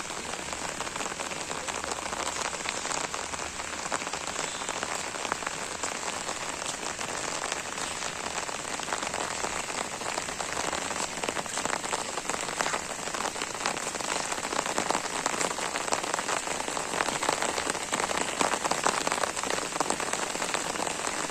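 Steady rain falling and pattering on surfaces, a dense hiss of countless drops that grows a little heavier toward the end.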